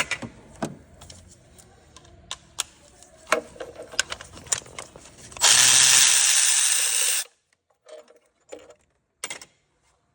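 Sharp clicks and clinks of tools on metal, then a power tool runs steadily for about two seconds and cuts off abruptly, backing out the engine's front cover bolts.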